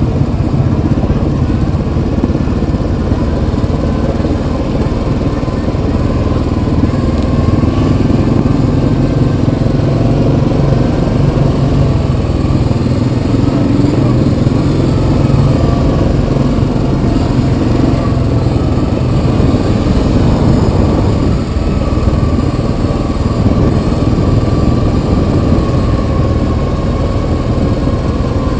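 Yamaha Kodiak 700 ATV's single-cylinder engine running steadily while riding, its pitch rising and falling gently with the throttle.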